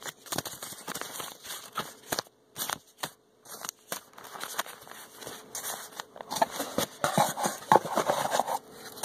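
Paper card packs and cardboard rustling and crinkling, with light taps and clicks, as hands rummage through a box of homemade booster packs; denser rustling near the end, after a brief lull.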